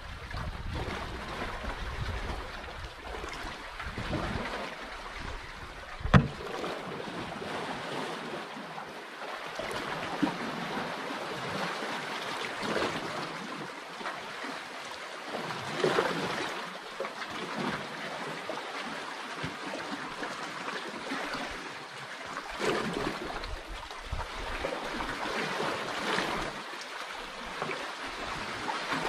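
Sea water lapping and sloshing against the hull of a small outrigger canoe, rising and easing in uneven swells. A sharp knock comes about six seconds in and a lighter one about ten seconds in.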